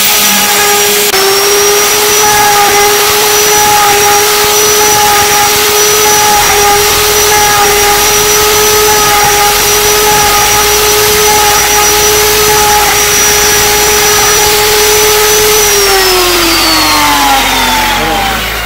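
Electric plunge router running with a steady high whine as its bit cuts into wooden window-frame stock. Over the last few seconds the whine slides down in pitch as the motor winds down.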